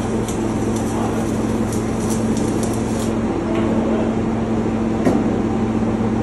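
Electric arc welding crackling and sizzling, stopping about three seconds in as the arc is broken, over a steady low machinery hum; a single knock about five seconds in.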